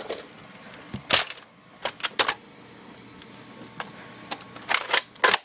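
Toy Nerf blasters firing and being primed: scattered sharp plastic clacks and pops, the loudest about a second in, with a few more near the end.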